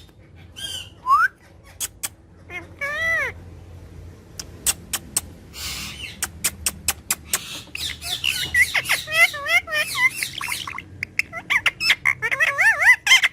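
Parrot calling: squawks and wavering, warbling whistled calls mixed with many sharp clicks. Sparse at first, the calls come thick and fast over the second half.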